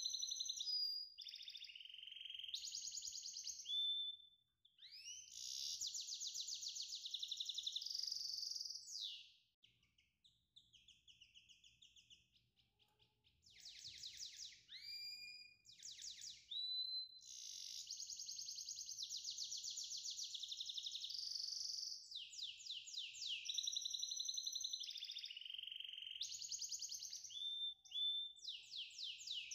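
Songbird singing in long, high-pitched trills of rapid repeated notes with whistled glides between phrases, broken by short pauses.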